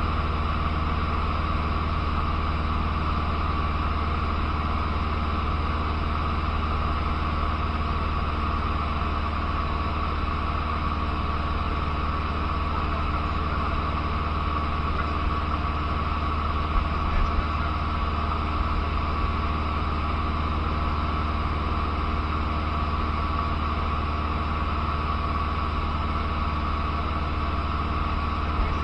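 Cessna 150's Continental O-200 four-cylinder engine and propeller running steadily in flight, heard from inside the cockpit: a constant drone with a steady high tone above it.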